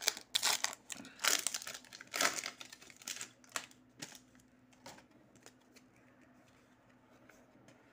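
A football trading-card pack's foil wrapper being torn open and crinkled, a run of crackling rustles over the first few seconds, thinning to a few faint ticks.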